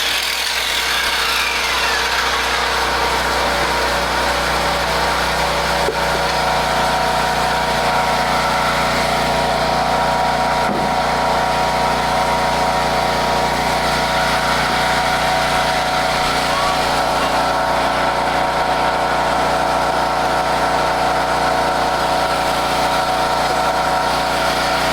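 A small engine running steadily with an even, unchanging hum. Over the first two seconds the whine of a power tool winds down and fades out.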